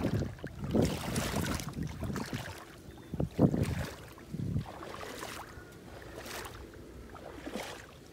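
Wind buffeting the microphone in gusts, with shallow lake water splashing and sloshing now and then. The loudest surges come in the first half.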